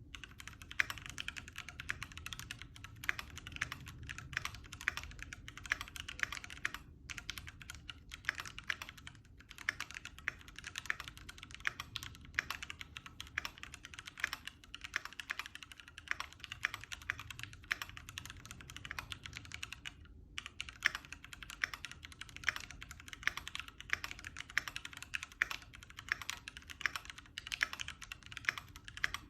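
Typing on a Keychron Q2 aluminium-case mechanical keyboard with its stock, unmodified Gateron Brown tactile switches: a fast, steady run of keystrokes, with brief pauses about seven and twenty seconds in.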